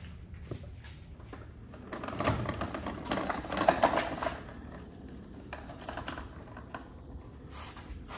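Rapid metallic clicking and rattling of a hand socket ratchet being worked, densest and loudest for a couple of seconds in the middle.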